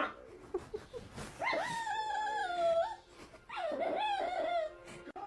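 A dog whining in two drawn-out calls, each a second or more long and sliding down in pitch toward its end.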